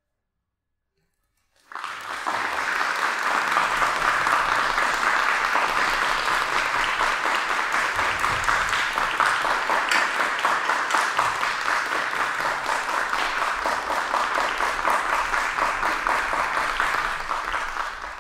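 Near silence for about a second and a half, then an audience bursts into steady applause that fades out at the very end.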